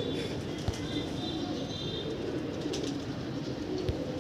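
A large flock of domestic pigeons cooing, many low calls overlapping in a steady chorus.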